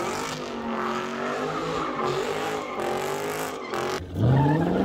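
Dodge Charger V8 held at high revs during a smoky burnout donut, the engine note wavering up and down over tire squeal. Near the end the revs climb sharply and it gets louder.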